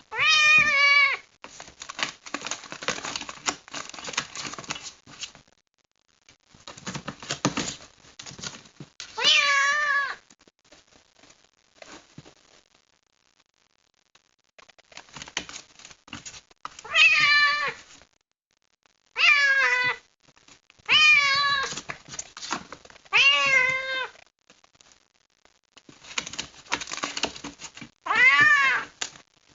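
A kitten meowing loudly and repeatedly, about seven short rising-and-falling calls, unhappy at being shut in a box. Scratchy rustling noises fill several of the gaps between the meows.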